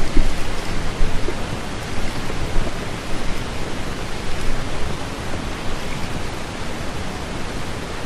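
Steady rushing noise of wind and sea on an action camera's open microphone, with gusty low rumble.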